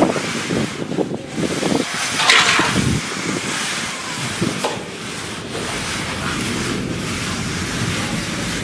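Wind buffeting the microphone over the scrape of a wooden straightedge drawn across freshly applied cement render, with a brief louder rush about two seconds in.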